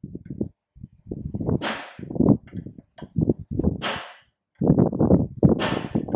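Hand hammer driving a steel punch into a red-hot forged dragon head held in a vise: clusters of quick sharp blows. Three short hissing bursts come about two seconds apart.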